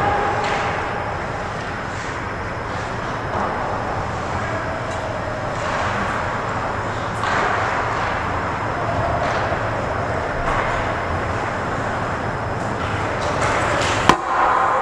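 Ice hockey rink ambience: a steady rush of rink noise with faint clicks of sticks and skates and distant shouts from play at the far end, then a sharp crack near the end as players crash the net in front of the goalie.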